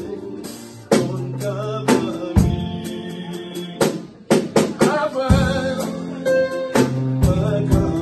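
Live band music: a man singing into a microphone over chords on an electronic keyboard, with a Pearl drum kit playing irregular hits and fills.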